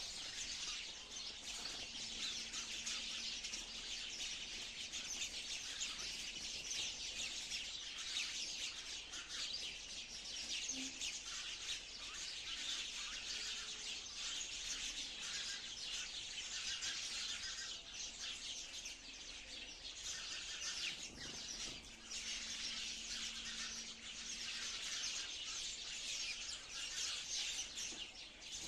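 A flock of sparrows chirping, many short chirps overlapping into a continuous chatter.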